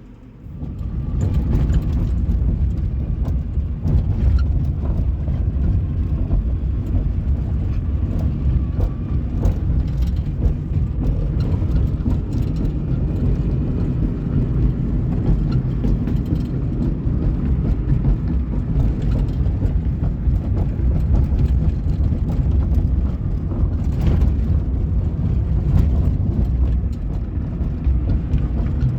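1998 Suzuki Baleno driving, heard from inside the cabin: steady low road and engine noise that starts about a second in.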